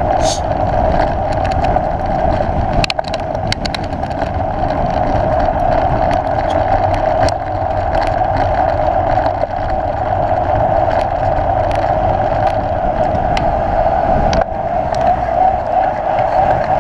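Mountain bike running fast down a road: a steady rush of wind and tyre noise, with scattered clicks and rattles.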